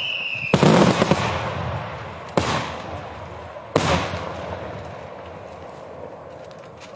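Daytime fireworks shells bursting overhead: three sharp bangs, the first with a crackling tail, each followed by a rolling echo that dies away. A falling whistle is heard at the very start.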